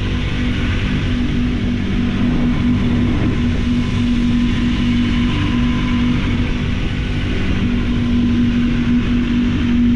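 Sport motorcycle engine and exhaust running loud and steady at constant revs, a held drone over low rumble with no sharp revving.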